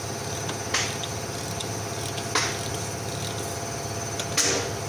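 A steady mechanical hum like a running engine throughout, with three short sharp metallic noises about a second, two and a half seconds and four and a half seconds in, the last the loudest, as a wrench works the truck's oil filter housing cap.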